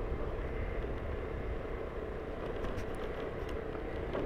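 Steady engine hum and tyre noise from a vehicle travelling along an old, patched asphalt road.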